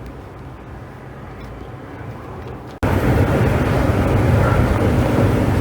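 Steady low rumbling noise with no clear rhythm or tone. It jumps suddenly much louder after an abrupt cut about three seconds in.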